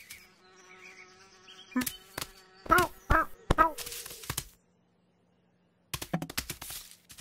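Cartoon foley of a small flying insect buzzing steadily for about two seconds, followed by three short rising-and-falling cries from the cat and a rustle of grass as it pounces. After a short silence there are scuffling knocks near the end.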